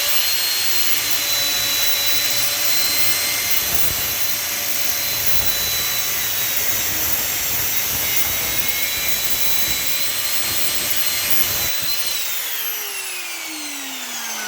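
Angle grinder with a cut-off disc running at full speed with a high whine while cutting through brass scrap. About 12 seconds in it is switched off and spins down, its whine falling steadily in pitch.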